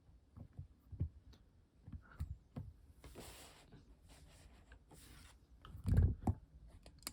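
Figure boxes being handled: scattered light taps and clicks, two short rustling scrapes, and a heavier thump about six seconds in.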